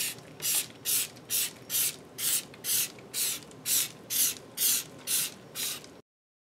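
Trigger spray bottle of foaming cleaner squeezed over and over, thirteen quick sprays at about two a second, onto a cast-iron milling machine table. The sound cuts off abruptly near the end.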